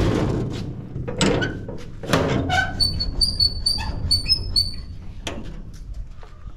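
Steel gate pushed shut with scraping rushes, then its sliding barrel-bolt latch worked by hand, giving a run of short, high metal squeaks in the middle.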